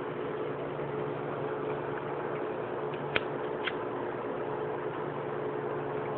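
A lighter flicked twice, two sharp clicks about half a second apart a little over three seconds in, and the flame catches. A steady hum runs underneath.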